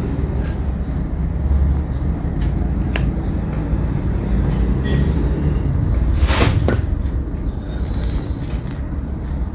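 Lid of a vintage Zippo lighter being flicked open and snapped shut, a few sharp metallic clicks with the strongest pair about six and a half seconds in. It is the lighter's original, unadjusted click sound. A steady low rumble runs under it.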